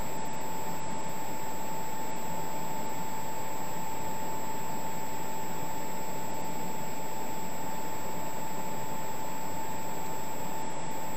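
Steady hiss with a constant mid-pitched whine and a fainter high one: electronic background noise, with no other event.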